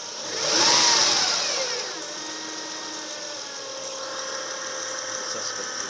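2005 Acura RL's 3.5-litre V6 revved briefly and dropping back, then idling with a small, steady whining noise as it settles at idle, which the owner suspects comes from the alternator.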